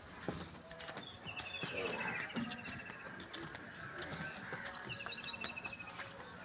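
Small birds calling: a fast repeated trill about a second in and again about five seconds in, with a run of short rising chirps just before the second trill.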